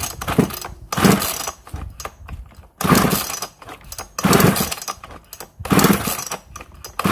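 Pull-starting a 3800-class two-stroke chainsaw with the choke closed: the recoil starter cord is yanked about five times, roughly one pull every second and a half, and the engine does not fire. The fuel needle is set less than one turn open, which the mechanic says is too lean for the fuel to draw.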